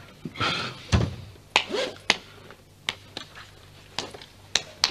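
A dull thud about a second in, followed by a string of short, sharp knocks and clicks at uneven spacing, like objects being handled in a small room.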